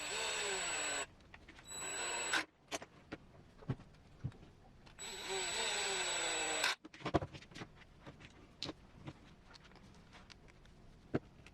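Small handheld power tool run in three short bursts, the first two brief and the third about two seconds long, each winding up as it starts. Scattered light clicks and taps of small parts being handled follow.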